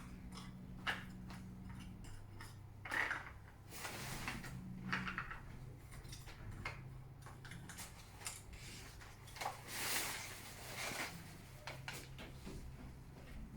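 Patio umbrella frame and fittings being handled and adjusted: scattered clicks, light rattles and rustling over a faint low hum.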